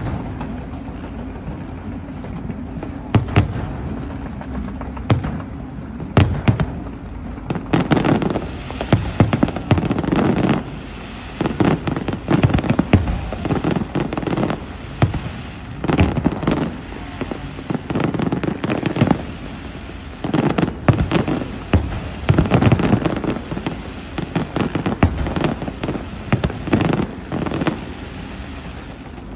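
Fireworks going off: scattered single bangs at first, then dense runs of bangs and crackling bursts through most of the stretch, easing off near the end.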